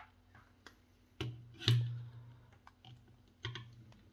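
Handling noise: sharp clicks and knocks of objects being set down or moved on a hard surface, each with a short low thud. Two come close together a little over a second in, the second the loudest, and one comes near the end, with lighter ticks between.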